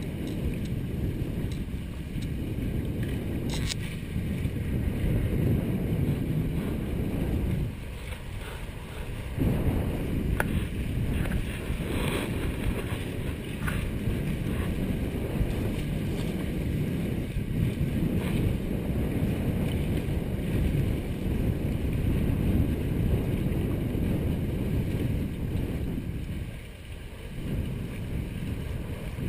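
Heavy wind buffeting the microphone in gusts, over the rush of water along the hulls of a Hobie 18 catamaran under sail. The wind rumble eases briefly twice, about a third of the way in and near the end.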